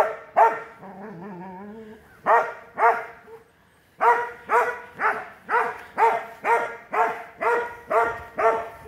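A dog barking at a cat: two barks, a brief wavering whine, two more barks, then after a short pause a steady run of barks about two a second.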